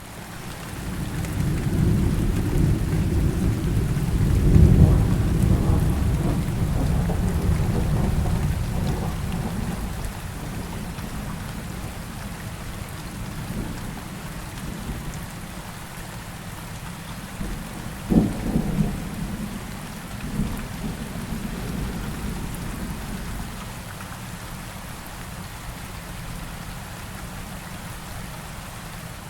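Steady rain with thunder: a long, deep rumble swells over the first few seconds and dies away by about ten seconds in, then a sharp crack a little past halfway is followed by a shorter rumble.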